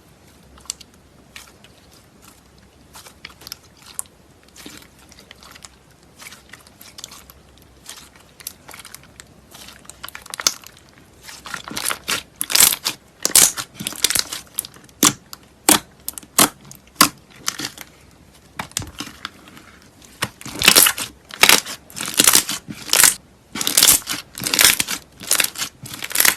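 Slime being squeezed and poked by hand, giving a stream of sticky crackles and pops. They are sparse and quiet at first, then come in dense, loud runs from about eleven seconds in.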